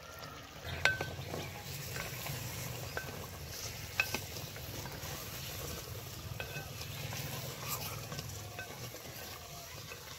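Chicken and potatoes cooking in a covered clay handi over a wood-fired chula: a steady sizzle with a few sharp clicks, the clearest about a second and four seconds in.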